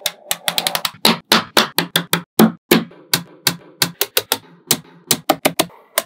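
Small neodymium magnetic balls clicking and snapping against one another in quick, uneven series of sharp clicks, several a second.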